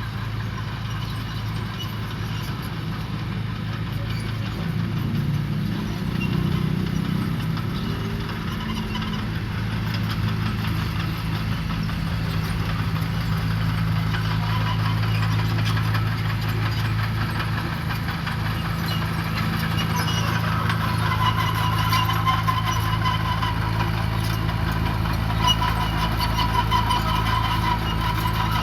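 Diesel engine of heavy earthmoving machinery running steadily, with a rhythmic clatter over it and a high whine coming in during the latter part.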